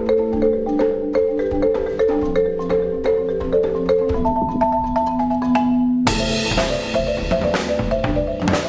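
Marimba playing a fast, repeating pattern of notes. About six seconds in, drums come in suddenly and play on alongside it.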